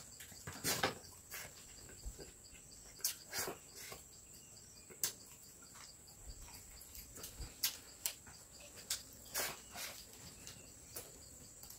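Insects droning steadily at a high pitch, with scattered short clicks and rustles from people eating by hand off banana leaves.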